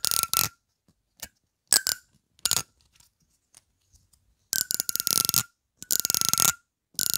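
Teeth of a comb flicked with a fingernail right against a clip-on microphone: several short strokes, then two longer runs of rapid ticking, one about four and a half seconds in and one about six seconds in.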